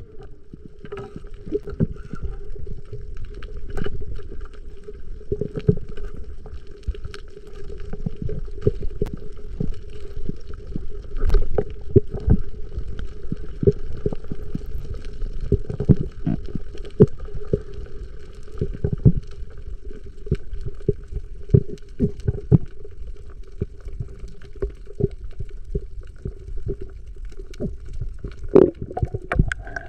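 Underwater sound through an action camera's housing: a low rumbling water noise with a steady hum, broken by frequent irregular knocks and clicks.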